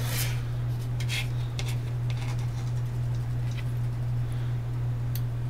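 A steady low hum, with a few faint clicks and brief rustles as tweezers pick up and set small metal washers and screws on a metal chassis.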